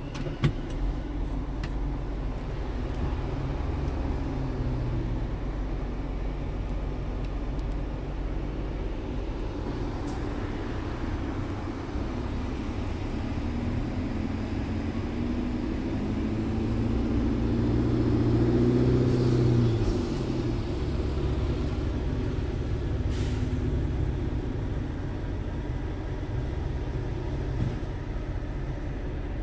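Scania R truck's diesel engine idling, heard from inside the cab. About halfway through the engine speed climbs slowly for several seconds, then drops back to idle, and there are a few short hisses of air. There is a single click less than a second in.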